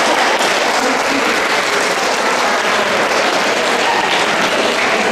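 An audience applauding: a steady round of clapping.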